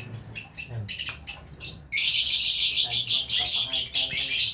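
Caged aviary birds chirping in short separate calls, then breaking into a dense, loud chorus of chirps and squawks about two seconds in.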